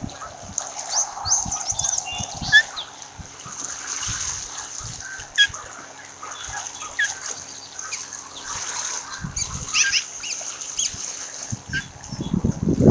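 Ospreys calling in a run of short, high-pitched chirps and whistles over a steady high hiss, heard through the nest camera's garbled audio.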